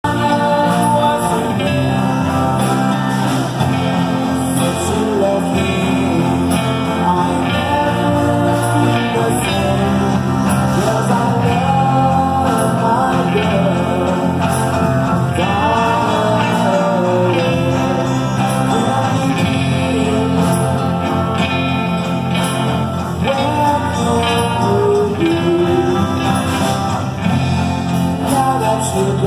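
Live band music: a male voice sings a melody over several strummed acoustic guitars, with electric guitar and a drum kit keeping a steady beat.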